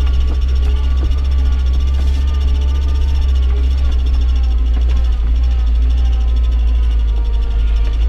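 Inside the cabin of a UAZ Patriot driving through deep snow: a steady, loud low drone from the engine and drivetrain, with no sudden knocks or changes.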